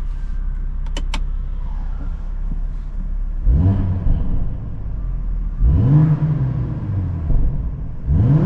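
BMW M240i xDrive's 3.0-litre turbocharged inline-six idling steadily, then revved twice, each blip rising and falling back within about two seconds, with a third blip starting at the very end.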